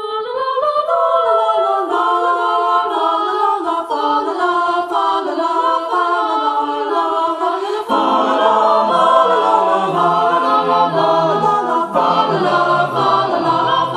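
High school choir singing a cappella in several parts. The upper voices sing alone at first, and about eight seconds in the lower voices come in underneath.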